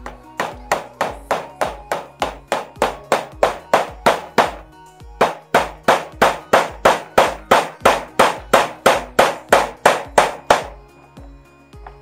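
Hammering: rapid, even blows at about three a second, with a short break about five seconds in, stopping shortly before the end. Background music plays underneath.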